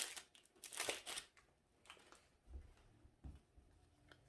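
Crinkling and rustling of a foil booster-pack wrapper and trading cards being handled, in two short bursts in the first second, then a few soft light bumps.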